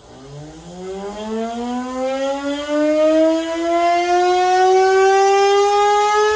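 Brushless RC-type motor spinning a compact disc up to high speed: a whine that rises steeply in pitch over the first couple of seconds, then keeps climbing slowly. It grows louder over the first three seconds, then holds level.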